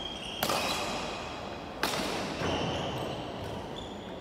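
Badminton rackets striking a shuttlecock, two sharp hits about a second and a half apart, echoing in the hall. Brief high squeaks, typical of shoes on the wooden court floor, come between the hits.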